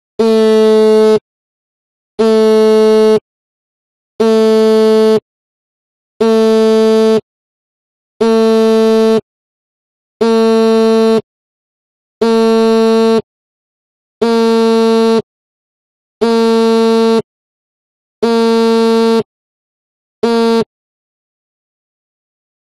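Mobile phone vibrating on a table as for an incoming call, the buzz rattling against the surface in even pulses: about one second on, one second off, eleven times, the last pulse cut short.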